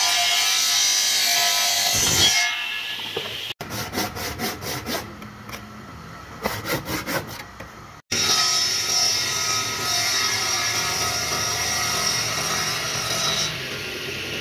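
Electric circular saw cutting thick solid wood: a loud steady cut at first, then a quieter run of quick repeated strokes in the middle, then another long steady cut that eases off near the end.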